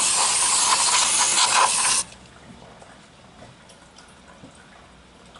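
Aerosol can of WD-40 precision electronics cleaner spraying onto a graphics card's circuit board: a loud, steady hiss that cuts off suddenly about two seconds in, followed by faint small ticks.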